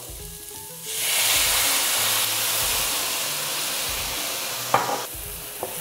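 Red wine poured into a hot sauté pan of onions, garlic and parsley: a loud sizzling hiss of boiling liquid and steam breaks out suddenly about a second in, then slowly dies down.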